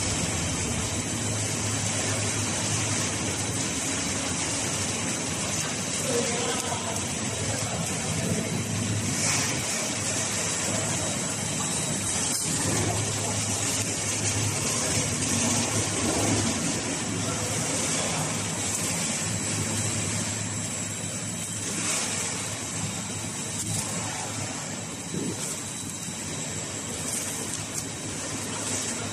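Horizontal flow-wrap packaging machine running steadily, wrapping spoons in plastic film: a constant mechanical hum with a thin high steady tone and hiss.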